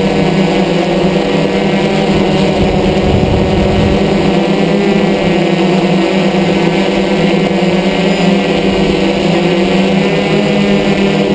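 DJI F550 hexacopter's six electric motors and propellers buzzing steadily at an even pitch, heard close up from the camera mounted on the craft.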